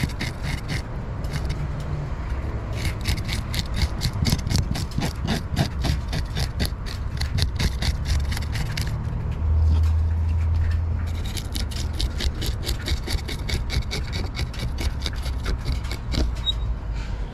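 Serrated handheld fish scaler scraping the scales off a mangrove snapper on a plastic tabletop, in quick repeated strokes of about four a second, pausing briefly twice. A low rumble swells for a second or so midway.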